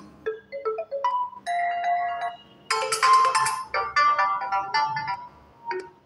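Several built-in Realme 9 5G ringtones previewed one after another through the phone's speaker. Each is a short melodic snippet that stops abruptly when the next tone is selected.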